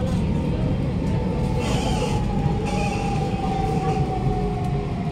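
Siemens C651 train's traction motors whining as it brakes into a station, the whine slowly falling in pitch over the rumble of wheels on track, with a stretch of hiss about two seconds in.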